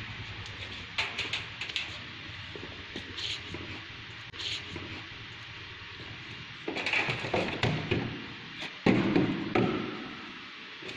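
A plastic tray being handled with a few light knocks and taps, then two louder spells of clattering, about two-thirds of the way in and again near the end, as cut potato strips are tipped and shaken from the tray into a wire-mesh basket.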